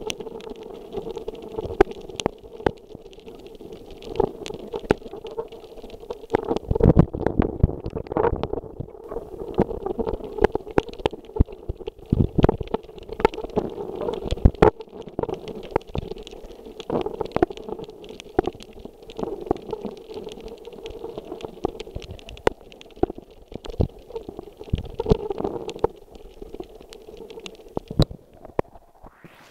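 Muffled underwater sound picked up by a submerged camera: a steady murmur of water studded with many sharp clicks and crackles, with louder rumbling stretches. Near the end the camera breaks the surface and the sound changes.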